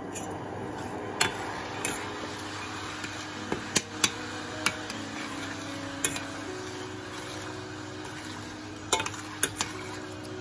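Spoon stirring in a metal saucepan, with irregular sharp clinks against the pan.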